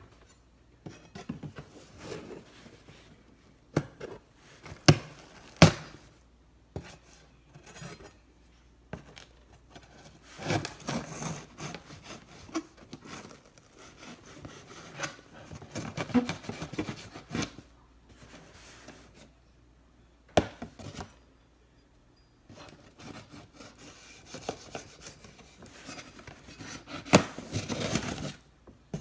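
A cardboard package being handled and cut open with a knife: stretches of rubbing and scraping, with a few scattered sharp knocks.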